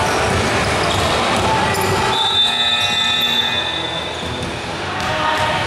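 Basketball game sound on an indoor court: the ball bouncing amid a steady din, with a high squeal lasting about a second, starting about two seconds in.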